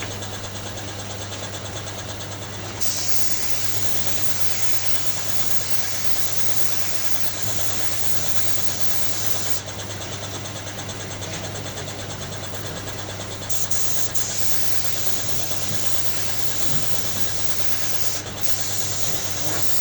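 A machine motor running steadily, with a low hum under a hiss; the hiss turns rough and rapid near the start and again partway through.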